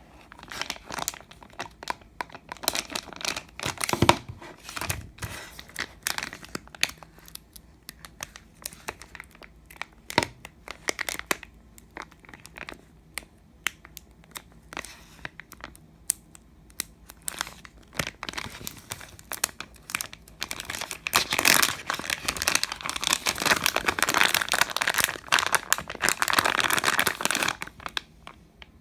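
Slime being squished and worked close to the microphone, giving crinkly crackling and popping. The pops come scattered at first, then turn dense and louder for the last several seconds.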